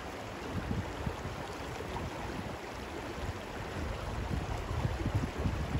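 Wind buffeting the microphone, an irregular low rumble that grows stronger near the end, over a steady outdoor hiss.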